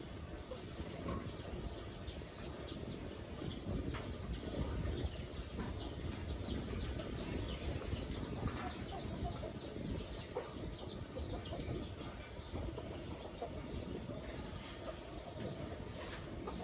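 Chickens in a yard: a run of short, high, falling peeps, about two to three a second, fading out after about eleven seconds, over a steady low noise.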